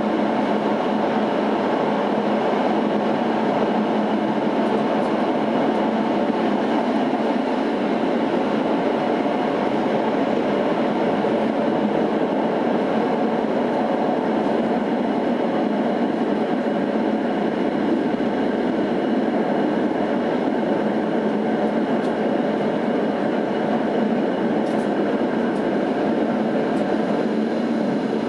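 Tatra T6A5 tram running through a tunnel: a steady, continuous rumble of wheels on rails and running gear.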